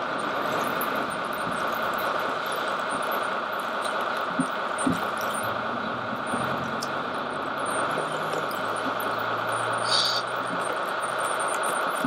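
Radio-controlled scale Liebherr crawler loader's electric drive and gearboxes whining steadily as it crawls through loose dirt. A low hum comes in around the middle, with a few scattered clicks and ticks.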